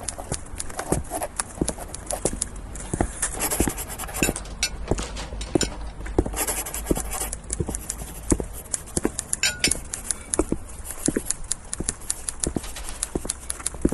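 A dense run of irregular clicks and knocks, several a second, over a steady low hum, with two short bursts of hiss near the middle.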